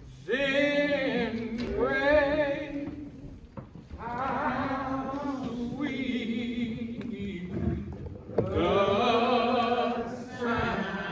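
Slow hymn singing with wavering held notes, in long phrases with short breaks between them.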